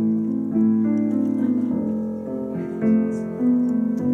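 Piano music: slow, sustained chords and single notes that change every half second to a second.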